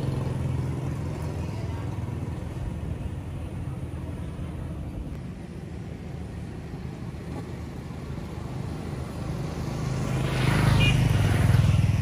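Motor vehicle engine running steadily. About ten seconds in it swells louder, with more rushing noise, and then eases off.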